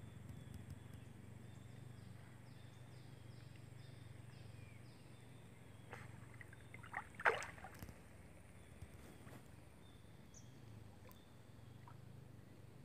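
An otter splashing in a river: a short, sharp burst of splashing about seven seconds in, over a faint steady outdoor background.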